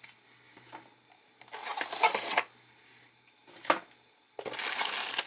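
Unboxing handling noise: a foam packing insert and a cardboard box rustle and knock, then a plastic bag of cables crinkles continuously from about four seconds in.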